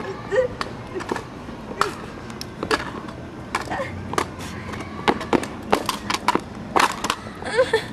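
Folding aluminium kick scooters clattering on asphalt: an irregular string of sharp knocks and rattles as the scooters are ridden, dropped and knocked about.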